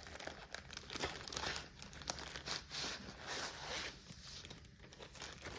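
Packaging bag crinkling and rustling in uneven bursts of small crackles as a cross stitch kit's contents are pulled out of it.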